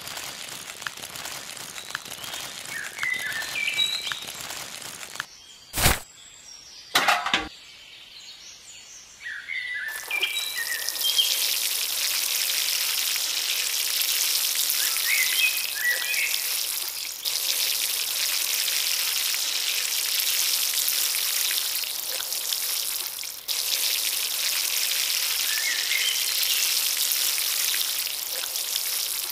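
Birds chirping, with two sharp knocks about six and seven seconds in. From about ten seconds on, a steady hiss of water poured in a thin stream from a small metal cup onto seeded sand.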